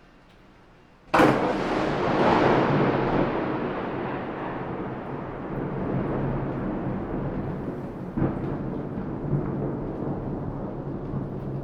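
Thunder: a sudden sharp crack about a second in, followed by a long rolling rumble that slowly fades, with a second, smaller crack about two-thirds of the way through.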